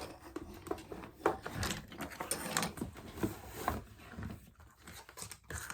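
Fidget toys being handled, shuffled and set down: irregular light clicks, knocks and rustling.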